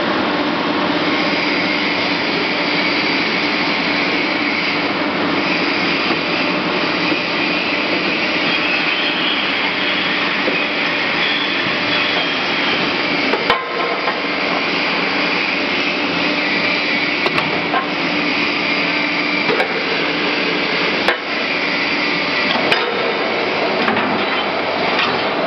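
Steady, loud machinery noise from an aluminium billet heating furnace and hot shear line. Around the middle and again later come several separate sharp knocks.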